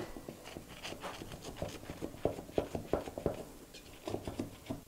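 Flat knife run around the edge of a baked angel food cake in a metal tube pan: a series of short, faint scrapes and taps, a few a second, as the blade loosens the cake from the pan wall.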